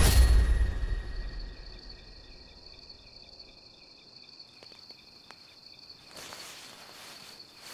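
Crickets chirping steadily as night-time ambience, a rapid high pulsing trill. A deep hit at the start fades away over the first second or so.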